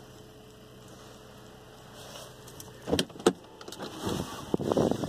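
Faint steady hum, then two sharp clicks about three seconds in, a third of a second apart, followed by rustling and light knocks: a car's driver's door being unlatched and pushed open from inside, with movement on the seat.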